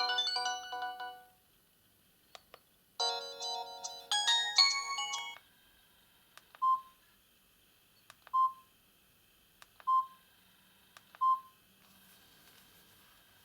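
Samsung GT-E1230 mobile phone playing polyphonic ringtones: one fades out in the first second, then a second short melody plays for about two seconds. After it come four short single-pitch keypad beeps about a second and a half apart, each just after a faint click of a key.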